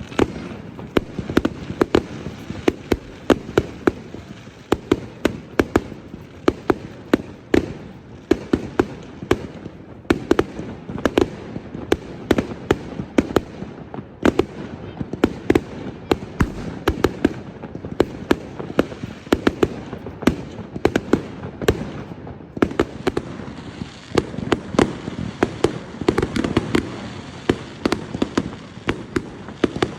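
Fireworks going off continuously: many sharp bangs, several a second at irregular intervals, over a constant rumble of more distant explosions.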